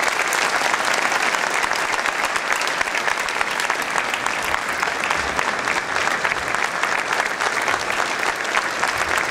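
A large audience applauding, many hands clapping in a dense, steady stream.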